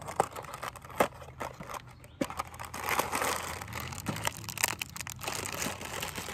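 Plastic food packaging crinkling and rustling as it is handled, with many sharp crackles and a denser stretch of crinkling in the middle.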